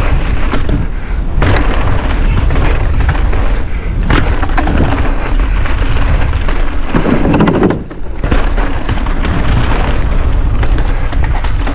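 Mountain bike rattling and clattering down a rough dirt trail, with wind buffeting the camera microphone as a loud, steady rumble. Sharp knocks come as the wheels hit bumps, one about a second and a half in and another about four seconds in.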